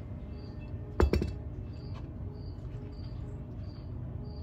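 A single sharp metallic clank about a second in as the old front wheel hub and bearing assembly is handled, over a cricket chirping about every half second.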